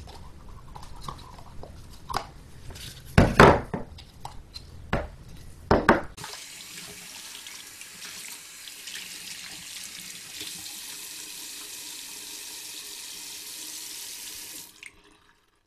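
Hard plastic knocks and clicks as the Ford Fiesta ST's sound symposer housing is handled, two of them louder. About six seconds in, a tap runs steadily for about nine seconds, then stops.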